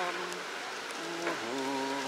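A man's voice singing a slow melody in long held notes that step from pitch to pitch, over a steady background hiss.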